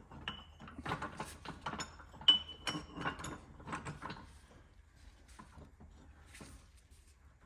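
Steel transmission parts clinking and knocking against each other, with a couple of brief metallic rings, as gears and blocks are handled at a small hydraulic press. The clatter thins to a few light clicks after about four and a half seconds.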